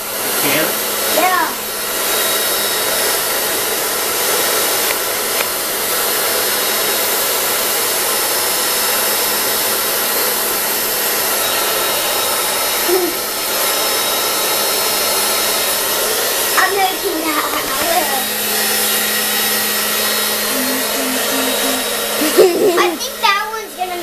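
Handheld hair dryer running steadily, a continuous rush of blowing air.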